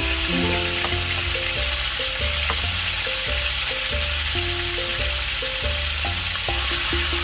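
Chicken frying in hot oil: a steady hissing sizzle with a few small pops, over background music.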